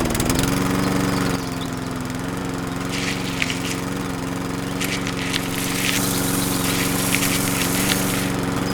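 A small motor-driven machine running steadily with an even engine-like drone, starting suddenly and overlaid with light rattling clicks.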